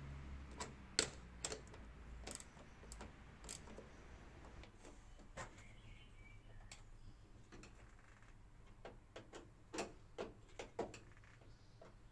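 Quiet, irregular clicks and taps of hand tools and metal fittings, with a socket ratchet clicking as bolts are turned on the roof rail. A brief run of louder clicks comes about nine to eleven seconds in.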